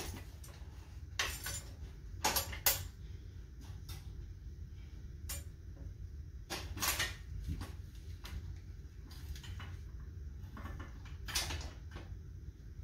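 Metal bicycle frames clanking and rattling as they are handled, carried and set down in a pile: scattered knocks and clinks, with a few louder clanks about two and a half, seven and eleven seconds in.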